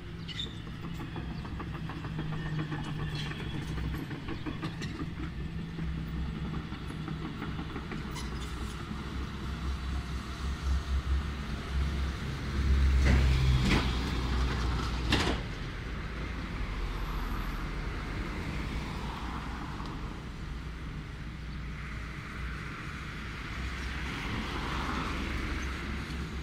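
Heavy diesel machinery running steadily with a low engine hum. It grows louder for a few seconds in the middle, where two sharp knocks ring out.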